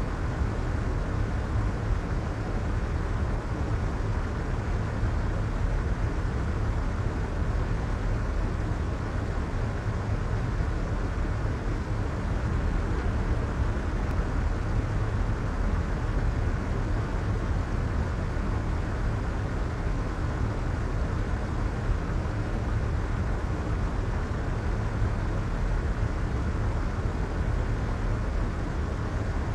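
Soft white noise: a steady, even hiss with most of its weight in the low end, muffled in the highs, with no change in level.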